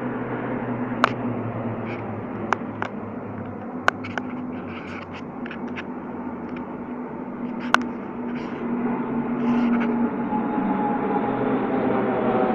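Military aircraft flying past overhead: a steady engine drone that grows louder and slides lower in pitch near the end as the aircraft pass. Several sharp clicks sound during the first half.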